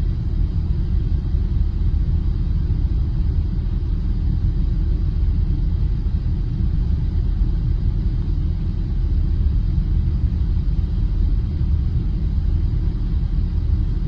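Car engine running with a steady low rumble, even and unchanging.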